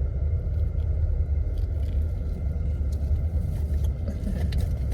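Steady low rumble of a car driving, heard from inside the cabin, with a few faint scattered ticks.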